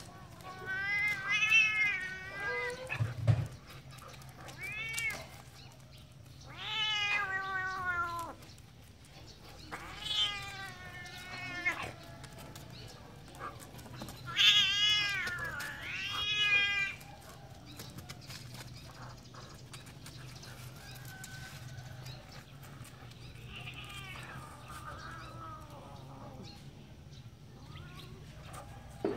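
Domestic cat meowing over and over in long, drawn-out yowls, about seven calls, the later one fainter, as a protest while a dog noses and paws at it. A soft thump comes about three seconds in.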